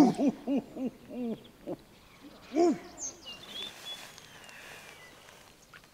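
A man whooping in celebration at a netted big perch: a quick, fading run of short rising-and-falling hoots, about four a second, then one more hoot about two and a half seconds in.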